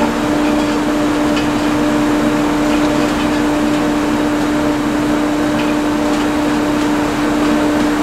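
Heavy farm machinery running steadily: a constant mechanical drone with an even hum.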